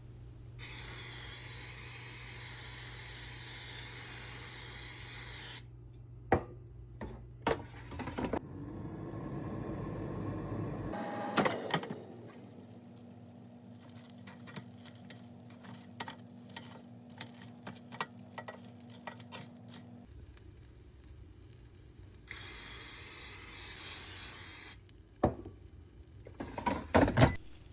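Cooking oil being sprayed onto chicken in an air fryer: two long, steady hisses, one about five seconds near the start and a shorter one near the end. Between them come scattered clicks and knocks of handling and a steady low hum lasting several seconds.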